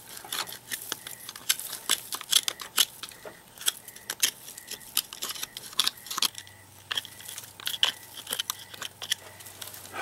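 Dry twigs and dead grass crackling and snapping as they are handled and pushed aside by hand: a string of sharp, irregular clicks.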